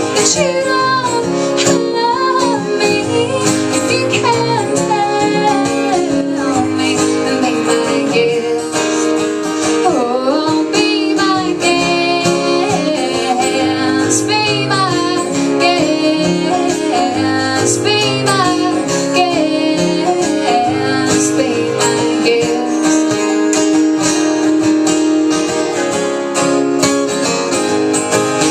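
A woman singing a country song live to acoustic guitar accompaniment, the voice carrying the melody over steady strummed chords.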